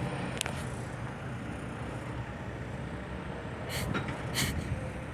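Steady low rumble of heavy construction machinery and dump trucks running. A sharp click comes less than half a second in, and two short harsh clatters about four seconds in.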